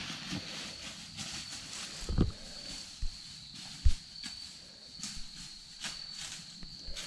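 Footsteps crunching through dry fallen leaves in woodland, with two sharp low bumps about two and four seconds in. A steady high-pitched tone runs underneath.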